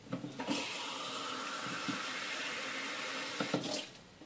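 Kitchen tap running, filling a cup with water, for about three seconds before it is turned off near the end; a few short knocks at the start and at the end.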